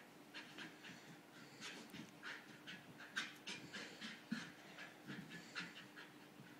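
Faint dog panting during rough play between two dogs, in quick, irregular breaths.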